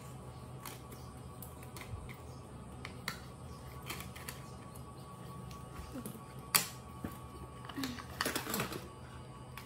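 Plastic baby toys being handled on a tiled floor: light, scattered clicks as stacking rings go onto a plastic ring tower. There is one sharp click about six and a half seconds in and a quick burst of clattering near the end.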